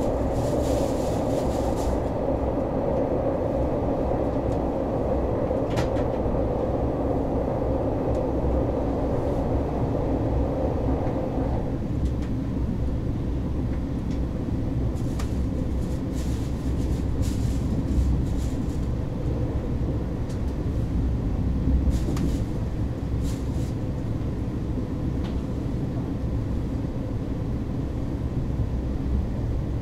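KTX high-speed train running, heard inside the carriage: a steady low rumble with a few faint clicks. A louder mid-pitched part of the noise drops away about twelve seconds in.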